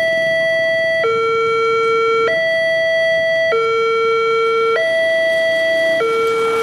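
Railway level-crossing electronic warning alarm sounding a steady two-tone ding-dong, alternating between a higher and a lower tone about every 1.25 seconds. It is still sounding as the crossing barriers rise, with the warning lights still flashing.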